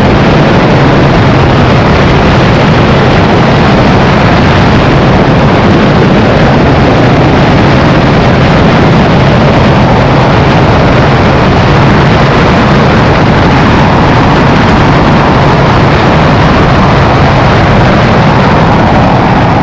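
Tornado 300 motorcycle held at top speed, its engine running loud and steady under a heavy rush of noise, with a slight rise in pitch in the last few seconds.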